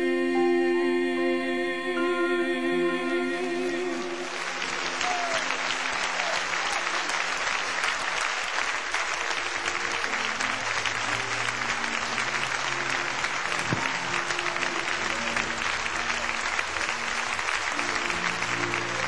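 A man and a woman hold the final sung note of a gospel song over backing music, then the congregation breaks into steady applause about four seconds in, with low sustained instrumental chords carrying on beneath the clapping.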